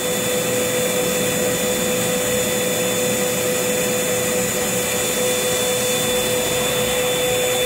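Vacuum cleaner running steadily through its hose: an even rush of air with a constant humming whine.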